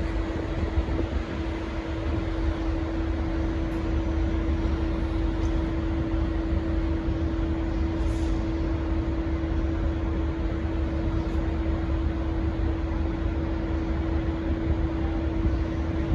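Diesel train running steadily with a low rumble and a constant hum held at one pitch, with no change through the stretch.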